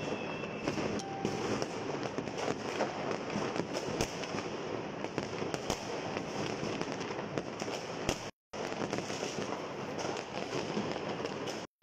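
Many fireworks and firecrackers going off at once in a dense, continuous popping and crackling, with a few sharper bangs standing out about four seconds in and again near six seconds. The sound cuts out briefly twice near the end.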